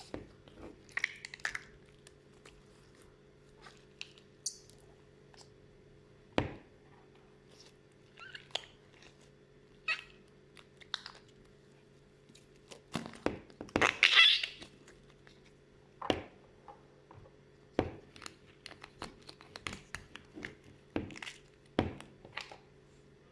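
Slime being squeezed and poked by hand: scattered short wet clicks and pops, with a louder, longer squelch about 14 seconds in.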